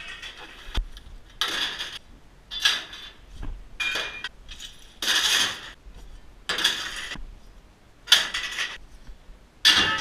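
Loose metal pipes and scrap clinking and rattling in repeated short bursts, about one a second or so.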